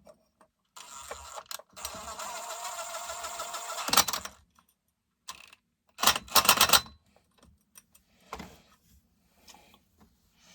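Small metal parts and hand tools clattering and rattling. A rattle of about three seconds ends in a sharp clank, and a quick burst of clinks follows about two seconds later, then a few light taps.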